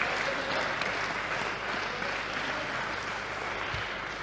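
Spectators applauding a won point in a hall, steady at first and slowly dying away.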